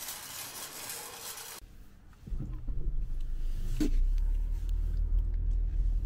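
A BMW sports car driving, heard from inside the cabin: a steady low engine and road rumble that starts about two seconds in. Before it comes a short hiss, and there is a single click partway through.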